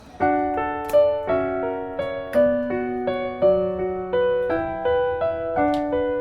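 Solo piano background music: a gentle melody of single notes, about two to three a second.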